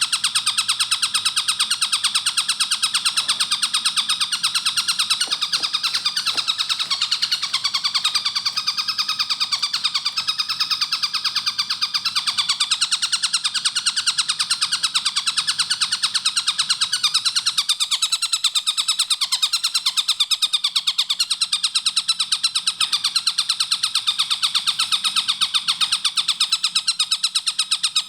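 Tengkek buto kingfisher calling in a fast, tightly spaced run of repeated notes, kept up without a break.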